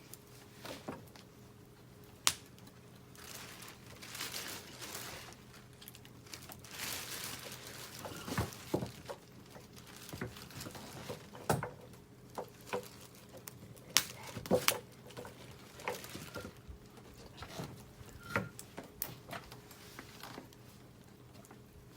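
Scattered sharp clicks, knocks and rustling of objects being handled and set down, irregular and with the loudest knocks about two seconds in and again around fourteen to fifteen seconds, over a faint steady hum.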